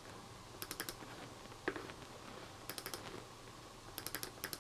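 Faint, quick clicks at a computer as folders are opened in Finder, coming in short runs of three or four about once a second, with single clicks in between.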